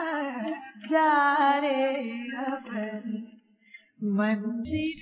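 A short sung musical interlude: a solo voice holding wavering notes with vibrato, which breaks off about three seconds in and comes back briefly for one last phrase.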